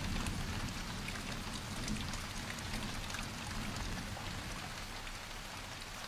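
Heavy rain pouring down steadily.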